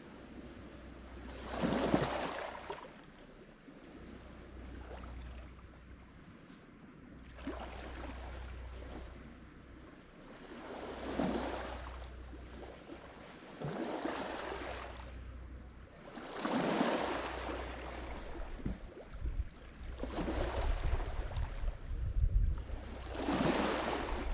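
Lake Michigan waves breaking and washing up on the shore, one surge every three seconds or so, over a steady low rumble of surf. Toward the end, low gusts of wind buffet the microphone.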